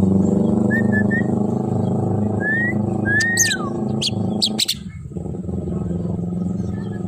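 Javan myna whistling and chirping: several short whistles that rise and fall, then a run of sharp chirps. A motorcycle engine runs steadily underneath and drops away briefly about five seconds in.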